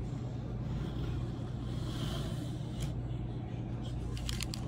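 Light clicks of a plastic transforming-robot figure's parts being handled: one just before three seconds in and a quick run of several near the end, over a steady low hum.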